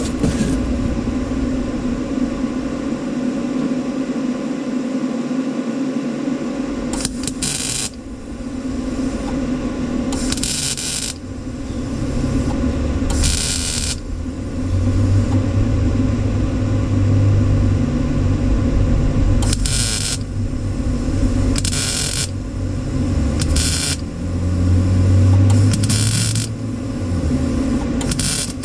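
Stitch welding on truck sheet metal: a series of short welding bursts, each under about a second, with gaps between them, over a steady shop hum.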